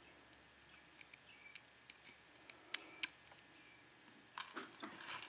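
Faint, scattered metallic clicks of needle-nose pliers working at the retaining clip on the back of a padlock's pin cylinder, with a busier run of clicks and scrapes near the end.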